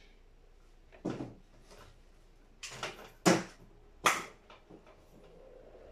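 A few separate knocks and clicks, the loudest two about three and four seconds in, as the battery charger's mains plug and cable are handled and pushed into a wall socket. A faint steady hum comes up near the end.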